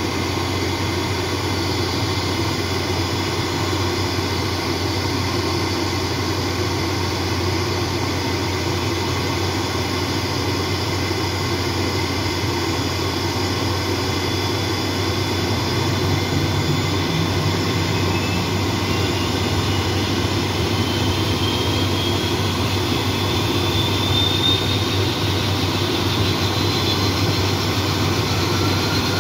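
ATR 42-500 turboprop's Pratt & Whitney PW127 engines running during start-up: a steady turbine whine over a low drone. From a little past halfway, a whine climbs steadily in pitch as an engine spools up, and the sound gets slightly louder.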